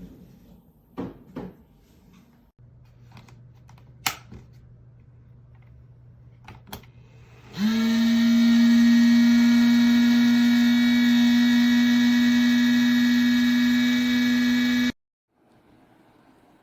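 A few light clicks, then a small electric fan motor starts with a brief rise in pitch and runs with a loud, steady hum before cutting off suddenly near the end. The fan is the plug-in space heater's.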